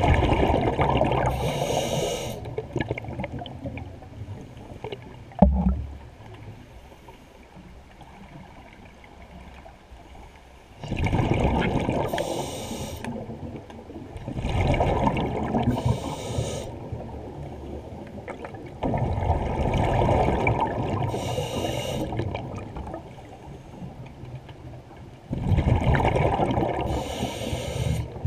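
Scuba diver breathing through a regulator underwater: five rushes of exhaled bubbles, each a few seconds long with a short high hiss near its end. There is a single dull knock about five seconds in.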